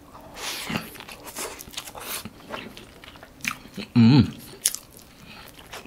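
Close-miked chewing of a mouthful of burger (soft bun and beef patty with onion): wet, crackly mouth sounds and small crunches. A short hum of the voice comes about four seconds in.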